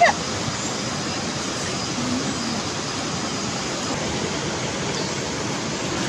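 Steady rushing of a river flowing over rocks.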